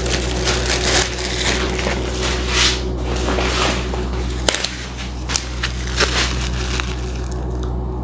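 Plastic packaging crinkling and rustling as it is handled: a thin clear plastic bag, then a paper-backed herb pouch, with many sharp crackles throughout.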